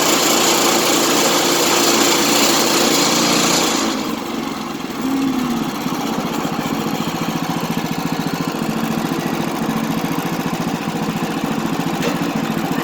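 Small gasoline engine of a portable bandsaw sawmill running hard, with a loud hiss over the engine note. About four seconds in the hiss and the level drop, and the engine runs on more steadily and more quietly.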